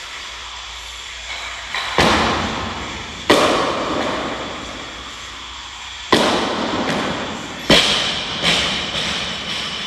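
Loaded barbell clanking as it is lifted overhead and lowered: four loud metallic clanks and a few lighter knocks, each ringing and echoing away.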